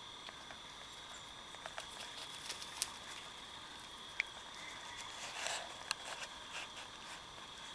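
Faint evening outdoor ambience: a steady, high-pitched chorus of calling insects, with scattered soft clicks and a brief rustle about five and a half seconds in.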